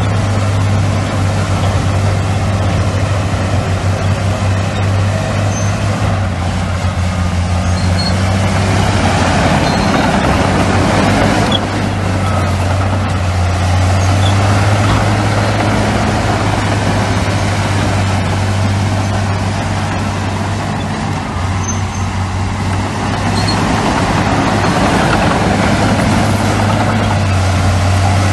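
Heavy diesel construction machinery running, a steady low engine drone with noise from the working machines over it.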